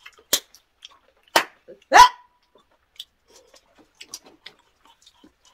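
Pet dog barking three short times, begging for food at the table.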